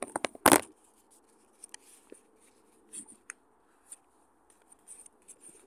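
Handling noise of a phone being moved about: a quick run of clicks and a sharp knock about half a second in, then faint scattered rubbing and scraping.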